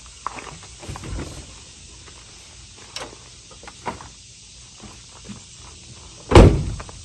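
Passenger van's rear door: a latch click and the door swinging open about a second in, a few light knocks, then the door is slammed shut near the end with a loud thump.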